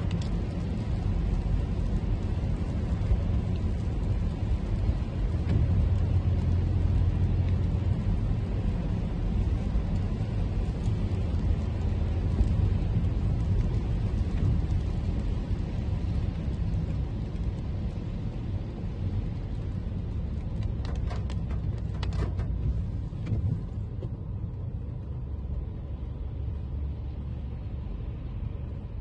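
Toyota Camry driving on a wet road: a steady low rumble of road and engine noise with an even hiss of tyres on the wet surface. The hiss fades back near the end, and there are a few sharp clicks shortly before that.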